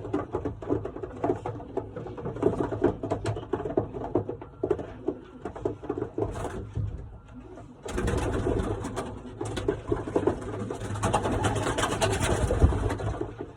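Pigeons cooing, many short repeated coos. About eight seconds in, a louder rustling noise sets in and runs for several seconds.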